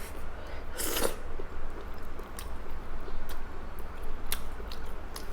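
A person chewing and biting food close to the microphone: a short crunchy bite about a second in, then scattered wet mouth clicks, over a steady low hum.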